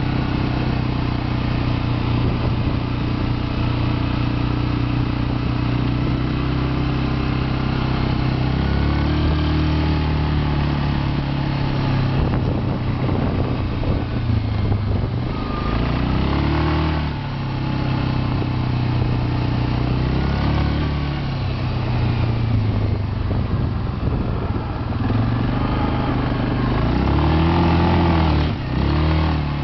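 Suzuki KingQuad ATV's single-cylinder four-stroke engine running under way, its note steady at first and then rising and falling in pitch several times as the throttle is worked, with a quick rev up and down near the end.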